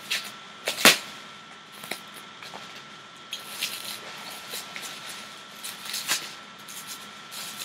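Plastic bubble-wrap packaging crinkling and crackling as it is handled and pulled off a boxed gift set, in irregular sharp crackles, the loudest about a second in.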